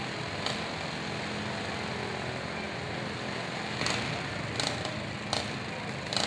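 Several riding lawn mower engines running together in a steady mixed drone, with a few short sharp sounds over it.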